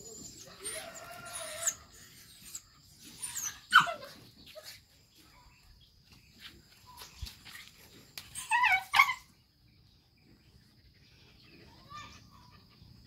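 A dog yelping and whining in short cries during rough play-wrestling with a young macaque. The loudest cry comes about four seconds in and falls in pitch, and a quick run of yelps follows near the nine-second mark.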